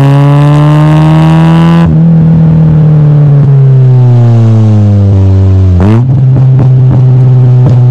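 Exhaust of a Mitsubishi Lancer CE coupe's four-cylinder engine, through a cheap aftermarket cannon muffler with the resonator deleted, heard at the tailpipe while driving. The revs climb, drop away suddenly about two seconds in and sink slowly, rise sharply for a moment near six seconds, then settle.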